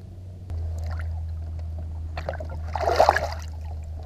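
A splash about three seconds in, as a caught bass is dropped back into the lake, over a steady low hum.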